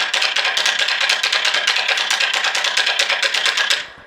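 Kabuki wooden clappers beaten in a fast, even run of sharp strikes, stopping abruptly near the end, the flourish that marks a pose after the name-announcing speeches.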